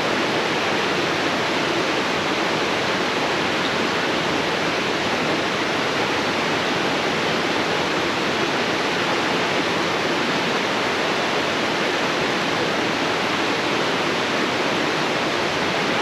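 Steady, unbroken rush of flowing stream water in a gulch.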